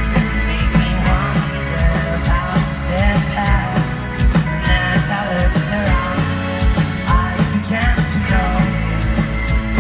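Indie folk band playing live over an outdoor festival PA, with singing, guitar and a steady drum beat, heard from within the crowd.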